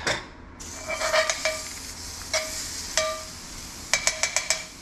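Minced garlic sizzling in a hot cast iron skillet while a utensil stirs it, clinking against the pan a few times, with a quick run of taps about four seconds in.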